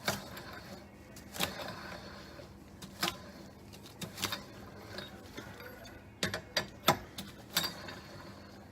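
Hand wrench working the wheel's lug nuts, giving irregular sharp metallic clicks, some in quick pairs, roughly once a second.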